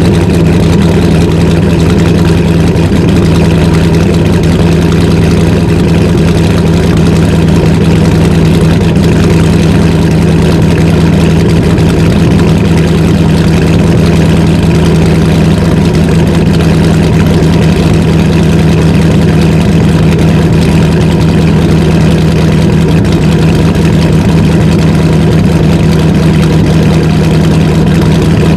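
Cammed 2009 Dodge Challenger SRT8's 6.1 Hemi V8, fitted with an Inertia SRT Max Plus cam, catless midpipes, no resonator and stock mufflers, idling steadily after a cold start, heard from behind the exhaust tips. The engine is not revved.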